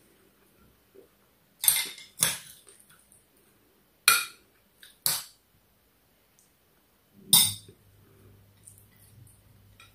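A metal spoon clinking against a glass bowl and a plate as tomato dip is spooned out, about five sharp clinks spread over several seconds. A faint low hum starts about two-thirds of the way in.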